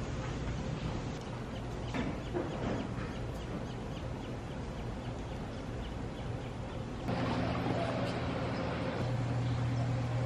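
Steady outdoor ambience with a constant low hum and a few faint bird calls; the hum grows louder about seven seconds in.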